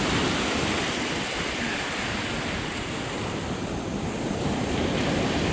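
Sea surf washing steadily onto the shore, with wind on the microphone.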